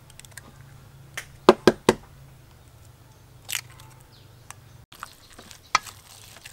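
Eggs cracked on the rim of a stainless-steel bowl and broken open over minced pork: a cluster of sharp taps about a second and a half in, and a short crackle of shell about three and a half seconds in. Near the end, a spoon stirring and scraping the meat mixture in the bowl.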